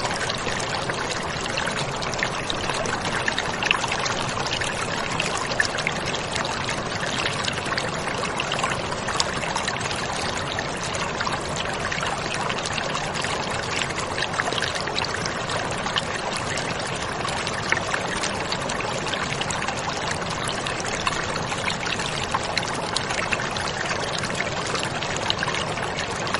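A steady, even rushing noise with a faint crackle in it, unchanging in level.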